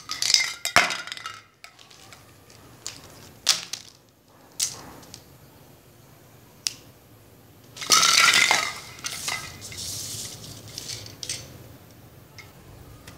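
Craft tools and materials being set down and handled on a tabletop: scattered light clicks, knocks and clinks, with a longer scraping rustle about eight seconds in.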